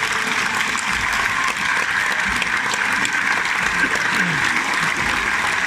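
Bullring crowd applauding steadily.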